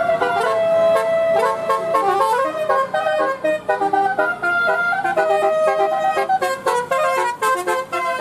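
Bus 'telolet' basuri musical horn playing a tune. It opens on a long held note, then runs through quick stepped notes, several tones sounding together.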